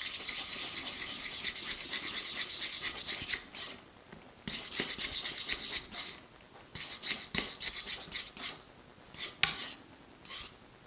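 Plastic fork stirring a glue-and-lotion slime base in a ceramic bowl, scraping against the bowl: rapid steady scraping for about the first three seconds, then shorter bursts of stirring strokes with brief pauses.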